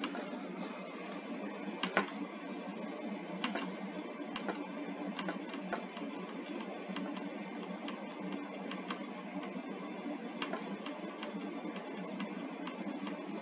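Scattered light clicks, a stronger one about two seconds in, over a steady hiss: a computer being clicked through presentation slides.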